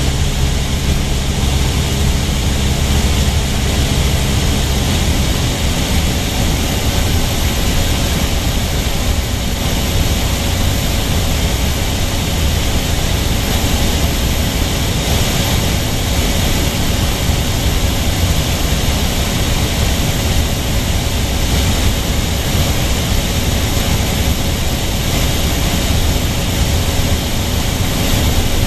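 Steady engine and propeller drone of a light propeller airplane in cruise, heard inside the cockpit: a loud, even cabin noise with a deep hum and rushing air.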